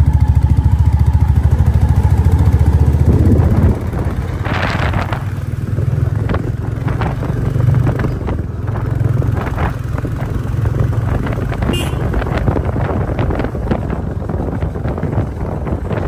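Motor vehicle running on the road. Its low engine pulsing is loud for about the first four seconds, then drops away, leaving a rumble with frequent rattling and clattering.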